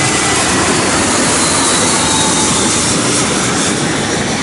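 Twin-engine jet airliner on landing approach with its gear down, its engines making a loud, steady rushing noise as it passes over, easing slightly near the end.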